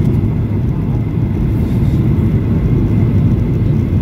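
Steady low rumble inside the cabin of a Boeing 737-800 descending on approach with its flaps extended: CFM56-7B engine and airflow noise heard from a window seat over the wing.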